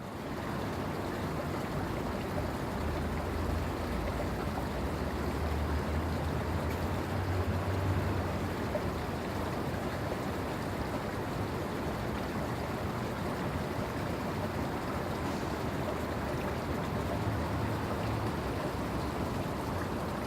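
Steady rushing water ambience: an even hiss of noise with a low rumble underneath that swells from about two seconds in to about nine seconds, and briefly again near the end.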